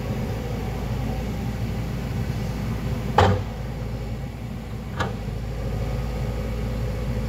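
Diesel engines of a tracked excavator and a crawler bulldozer running steadily. A loud knock about three seconds in and a lighter one about two seconds later.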